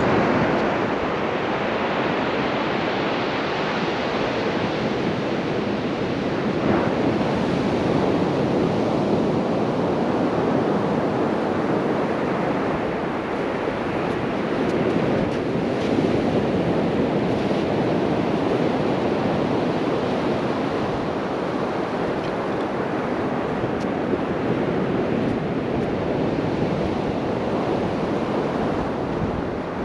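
Sea surf washing onto the beach in a steady rush, with wind buffeting the microphone.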